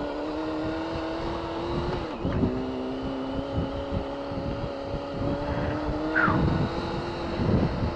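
Sport motorcycle engine running at a steady cruising speed, its note dipping briefly about two seconds in, with wind buffeting on the helmet-mounted microphone.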